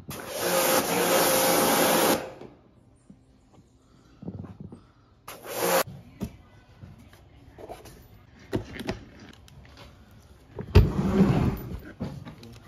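Electric pressure washer running and spraying its water jet for about two seconds, then a second short burst about five seconds in. Near the end comes a loud clatter of about a second.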